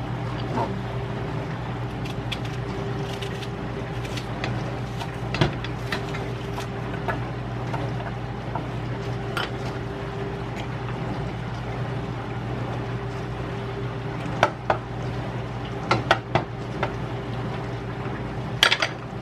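Clicks and clinks of a glass garlic jar and utensils handled on a kitchen counter, a few louder knocks near the end, over a steady background hum.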